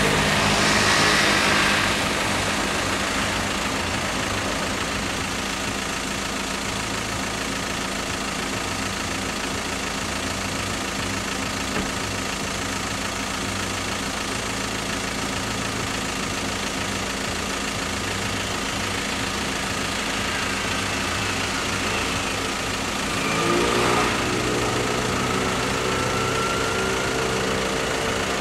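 Car engine idling steadily while waiting at a closed level crossing. Another vehicle swells past in the first two seconds and again about 23 seconds in, after which a second engine hum joins the first.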